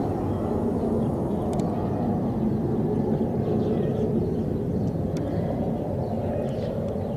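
Steady low roar of a jet warplane's engines overhead during an airstrike, with no sharp blast.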